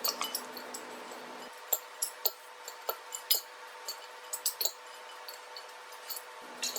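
Light, irregular clinks and taps of tableware against a bowl while dressing is poured over and mixed into a salad.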